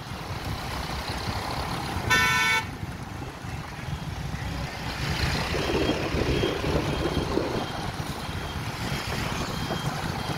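Street traffic rumbling steadily, with one short vehicle horn honk about two seconds in.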